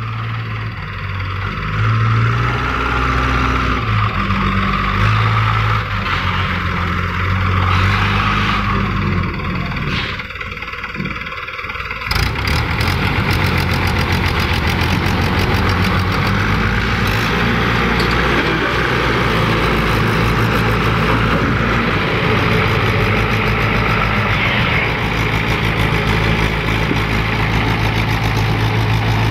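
Mahindra tractor's diesel engine running under heavy load as it hauls a fully loaded trailer, with a JCB backhoe loader's engine pushing from behind. The engine note steps up and down for the first twelve seconds, then changes abruptly to a steadier, closer engine sound.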